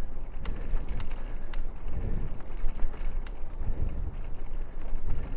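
Bicycle riding noise picked up by a camera clamped to the bike frame: a continuous low rumble of tyres and wind that swells about once a second, with scattered sharp clicks and rattles from the bike. Two faint high falling whistles, at the start and about four seconds in.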